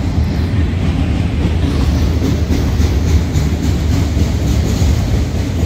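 Loaded auto rack freight cars rolling past, a steady heavy rumble of wheels on rail with faint repeated clicks.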